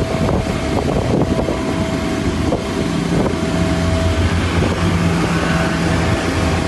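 Steady engine rumble with a constant thin whine over it, and wind buffeting the microphone.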